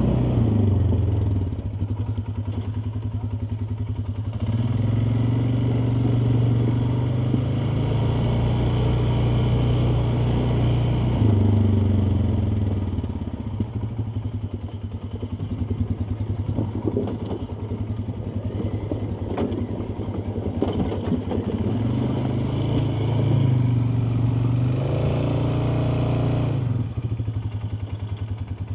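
ATV engine running and revving as it is ridden over rough terrain, its pitch rising and falling repeatedly. There are scattered clattering knocks in the middle stretch.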